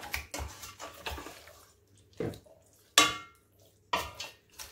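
Wooden spoon stirring raw chicken pieces in seasoning in a stainless steel pot, with wet squelching and scattered knocks of the spoon against the pot. The loudest knock, about three seconds in, leaves a short metallic ring.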